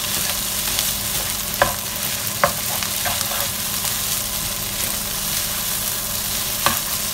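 Fried rice and egg sizzling steadily in a nonstick frying pan as a spatula stirs and tosses it, with a few short clicks of the spatula against the pan.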